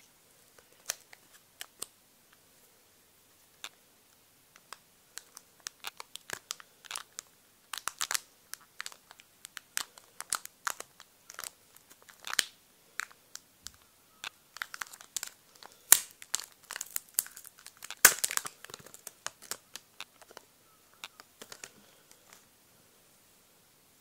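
Clear plastic wrapping crinkling and crackling in the hands as a coiled USB cable is unwrapped from it: an irregular run of sharp crinkles, sparse at first, thickest through the middle, with the loudest snaps a little past the middle.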